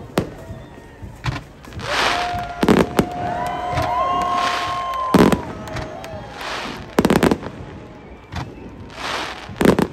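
Fireworks going off: a series of sharp bangs, the loudest about five and seven seconds in, with crackling bursts and long whistling tones that glide up and down between them.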